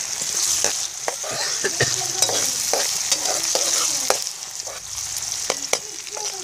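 Sliced onions sizzling in hot oil in a frying pan, stirred with a slotted metal spatula that clicks and scrapes against the pan many times. The onions are frying toward browning.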